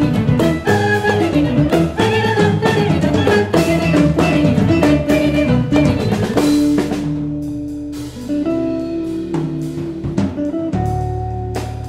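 Live jazz ensemble music, with electric guitars and drum kit to the fore over a busy, rhythmic band texture. About two thirds of the way through it thins briefly to a held note, then the full band comes back in.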